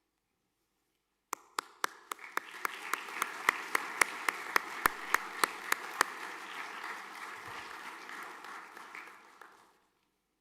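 Assembly audience applauding, with one clapper close by giving sharp, regular claps about three or four a second over the crowd's applause. It starts about a second in, and the applause fades away near the end.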